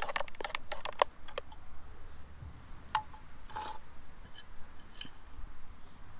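Wooden spatula scraping and tapping against a frying pan in quick clicks as fried rice is stirred and scooped out, thinning to a few scattered knocks. About three and three and a half seconds in come two clinks with a brief ring.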